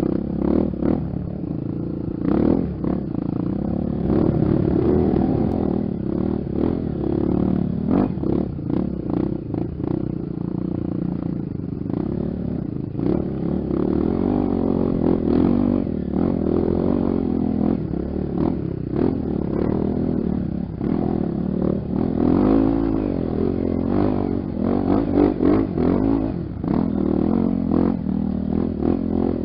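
Honda XR 250 Tornado's single-cylinder four-stroke engine running on a dirt trail, its revs rising and falling again and again with the throttle, with frequent knocks and rattles throughout.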